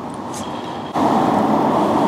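Steady rush of road traffic on the roundabout, stepping up suddenly and louder about a second in.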